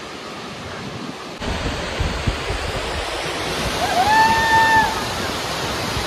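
Steady rushing roar of the Jogini waterfall crashing down a rock face onto boulders, growing louder and fuller about a second and a half in. About four seconds in, a short high-pitched call rises over the water and holds for about a second.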